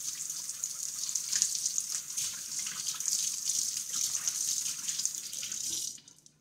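Kitchen tap running into a stainless steel sink while hands are rinsed under the stream. The water shuts off suddenly near the end.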